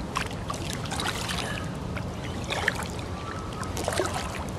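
Kayak paddle strokes: the blades dip and splash in calm creek water, with water trickling and dripping off the paddle, over a steady low hum of distant traffic.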